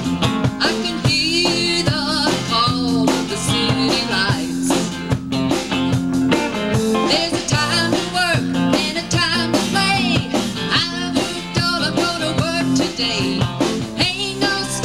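A live band playing a bluesy rock-and-roll cover of a country song, with electric guitar lines over a steady beat of drum hits.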